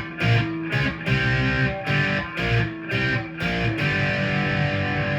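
G&L Legacy Tribute electric guitar on its middle single-coil pickup, strummed chords played through an amp: a run of short, choppy strums, then a chord left ringing from about four seconds in.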